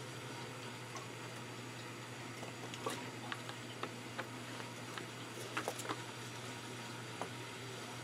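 Faint handling sounds of a plastic bottle of isopropyl alcohol and a microfiber cloth: a few soft clicks and rustles in the second half, over a steady low hum.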